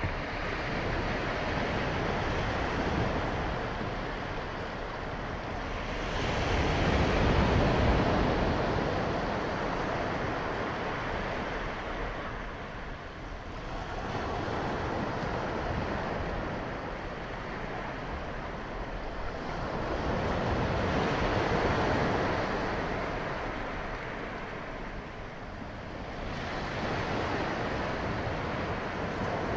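Small waves breaking and washing up a sandy beach, the surf rising and falling in slow swells several times.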